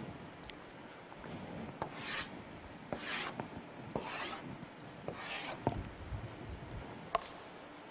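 Chalk drawn across a blackboard in four horizontal strokes about a second apart, each a short scratchy rasp. A single sharp tap comes near the end.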